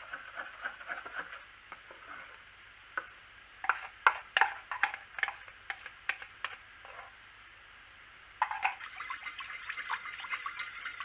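A metal spoon stirring and scraping in a plastic bowl of dissolving stearic acid, with a run of sharp clinks in the middle. About eight seconds in, a denser sloshing of liquid starts as the mix in the slow cooker's crock is stirred.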